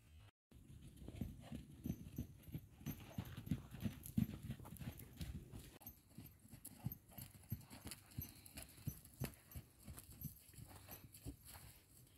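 Hoofbeats of a Curly horse mare and her foal trotting and cantering on a sand arena: many irregular low thuds, loudest a few seconds in and lighter towards the end.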